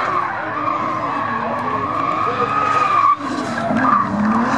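Nissan Silvia drift car's engine revving up and down as it slides, with its rear tyres squealing continuously. The engine note drops sharply for a moment about three seconds in, then climbs again.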